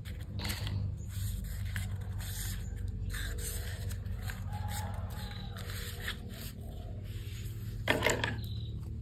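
Paper being handled and cut with scissors: irregular rustling, scraping and short snips, with a louder crinkle near the end.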